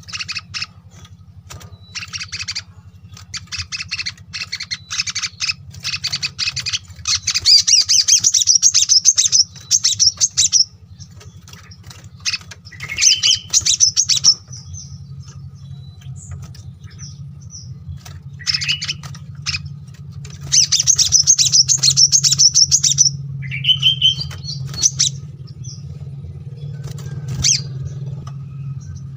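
Small songbirds, sunbirds among them, singing fast, dense, high-pitched twittering in bursts of a few seconds with short pauses between, over a steady low hum.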